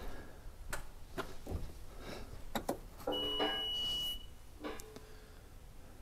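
A single electronic beep from a Bobcat S590 skid-steer's cab warning buzzer, lasting about a second and starting about three seconds in, as the key is switched on before starting the engine. A few scattered knocks and clicks of someone climbing into the cab come before it.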